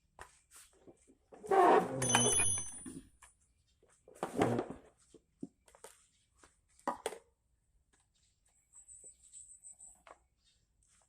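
Hard objects being handled and set down: a rough clatter with a brief metallic ring about one and a half seconds in, then scattered knocks and bumps.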